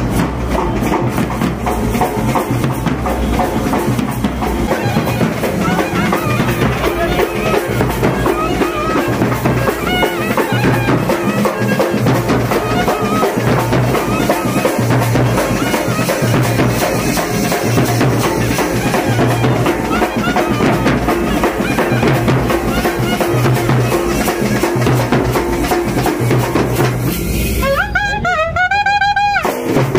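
Street band music: a clarinet playing a wavering melody over steady drumming. Near the end the drums briefly drop away, leaving the clarinet line alone.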